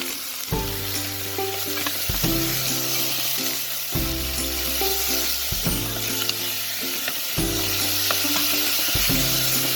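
Chopped chicken wings and drumettes sizzling steadily as they fry in a pot of hot oil and sugar with garlic and ginger. Background music plays underneath, with steady chords changing every second or two.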